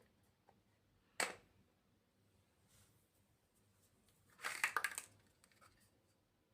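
Small plastic building-block pieces clicking as they are handled and pressed together: one sharp click about a second in, then a quick cluster of clicks and rattling a little past the middle.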